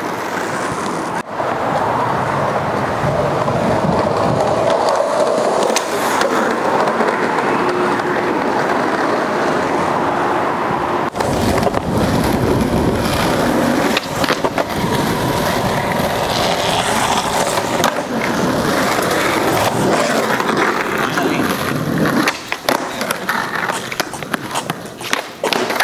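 Skateboard wheels rolling over concrete and asphalt in a steady gritty rumble, broken by sharp clacks of the board on tricks and landings, coming thick and fast near the end.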